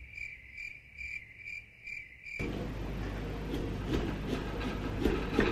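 High-pitched rhythmic chirping, about two chirps a second, that stops abruptly about two and a half seconds in. After it comes a steady noisy room sound with small clicks and scrapes from the pumpkin carving.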